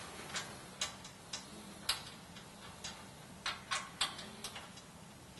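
Light metallic clicks and taps of 3/8-inch bolt, washer and nut hardware against a skid-plate strap bracket as a nut is threaded on by hand, about nine clicks at irregular spacing.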